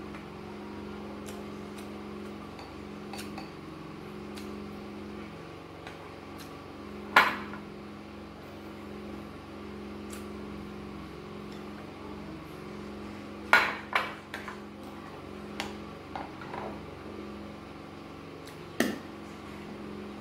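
A metal spoon clinking and scraping against glass bowls of gari: a few sharp clinks, the loudest about seven seconds in, another pair near the middle and one more near the end, over a steady low hum.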